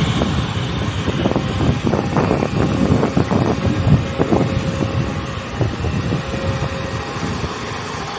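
A motorcycle passing close by on the road and fading away, with irregular wind gusts buffeting the microphone.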